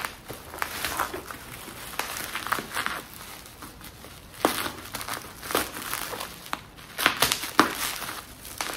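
Plastic bubble-wrap packaging crinkling as it is handled and cut open with scissors, with irregular sharp crackles and a few louder snaps about halfway through and near the end.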